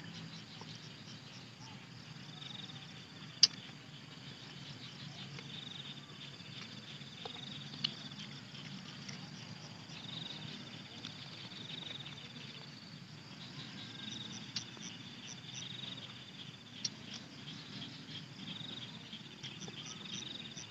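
Insects chirping in a repeating high pulsed pattern, with a few short sharp clicks; the loudest click comes about three and a half seconds in.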